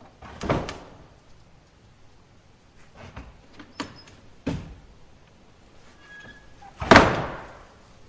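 Wooden screen door on metal spring hinges swinging and knocking against its frame several times. The loudest is a sharp slam shut about seven seconds in, ringing briefly after, with a short faint squeak just before it.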